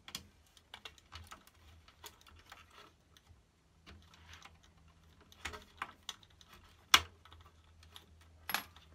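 Irregular small clicks and taps of fingers handling the parts of an opened NAD 602 cassette deck's tape mechanism while lining it up, with one sharper click about seven seconds in.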